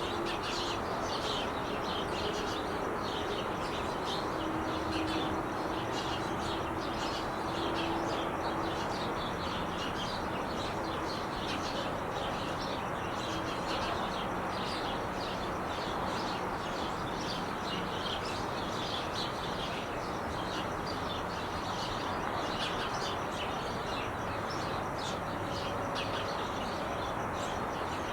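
Steady traffic noise from the 5 freeway, with many small birds chirping rapidly and continuously over it.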